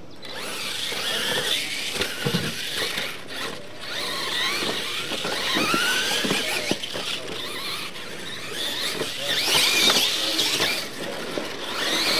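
Electric Losi LMT radio-controlled monster trucks racing on dirt: their motors and drivetrains whine, rising and falling in pitch with the throttle, over tyre noise, with occasional knocks. The loudest stretch comes about ten seconds in.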